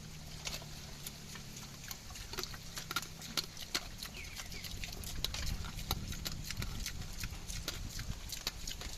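Native pigs chewing wild bananas: a fast, irregular run of crunching clicks and smacks, over a low steady hum.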